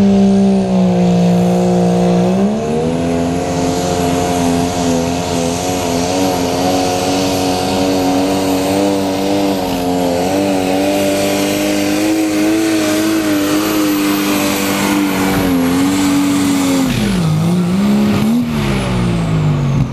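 Allis-Chalmers pulling tractor's engine at full power, dragging a weight-transfer sled down the track: its note climbs about two seconds in and holds high and wavering, with a thin high whine above it. Near the end the revs drop sharply as the pull ends, blip up once, and fall away.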